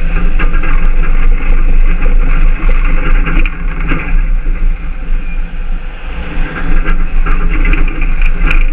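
Tow truck's engine running as the truck turns and manoeuvres, a loud steady rumble that eases briefly in the middle and rises again about two-thirds of the way through.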